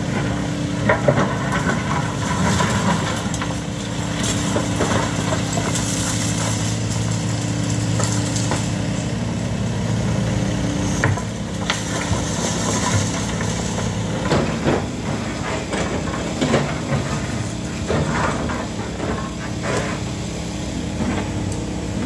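Hitachi Zaxis 130 excavator's diesel engine running steadily under load while its bucket digs and drops broken concrete rubble, with irregular knocks and clatter of concrete chunks, more frequent in the second half.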